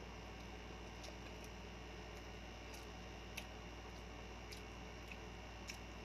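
Faint eating sounds: a few small, sharp clicks and smacks, scattered every half second or so, from chewing and from fingers picking rice and sisig out of the bowl. Under them runs a steady low hum.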